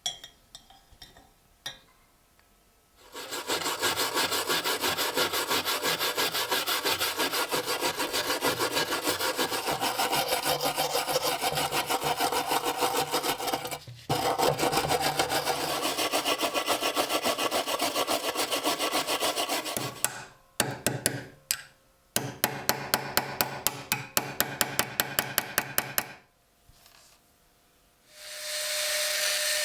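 A hand tool scraping in rapid, evenly repeated back-and-forth strokes, a file or saw kind of sound, with a short break partway and a faster, crisper run later on. Near the end a steady noisy sound starts.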